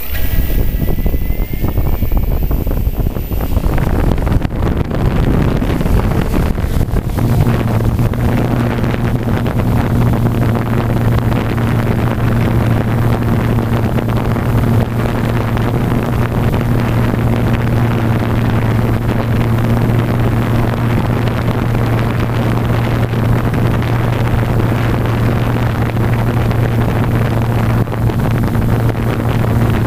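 Blade 350 QX quadcopter's motors and propellers heard from a GoPro mounted on the aircraft, with prop wash rushing on the microphone. About seven seconds in the sound settles into a steady low hum that holds as the quad flies.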